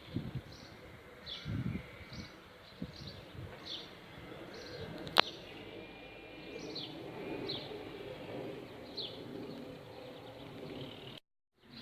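A small bird repeating a short, high, falling chirp over and over, roughly every two-thirds of a second, over a faint low hum of a honeybee swarm. A single sharp click about five seconds in, and the sound cuts out briefly near the end.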